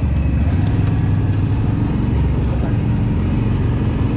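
ATV engine running steadily while the quad is ridden.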